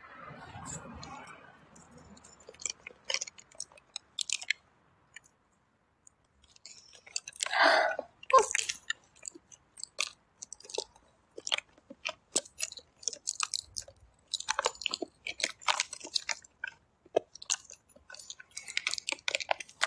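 Irregular close-up clicks, taps and rustles of a smartphone being handled and tapped, with a denser rustle about eight seconds in.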